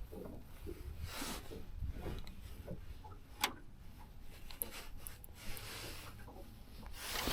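Faint handling noises: light rubbing and small scattered clicks, with one sharper click about three and a half seconds in.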